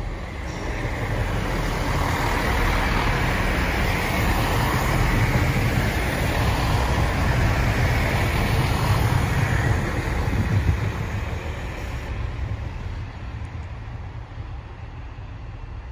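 Class 165 diesel multiple unit passing at the platform. Its engine drone and running noise build up over the first few seconds, are loudest for several seconds as it goes by, then fade as it pulls away.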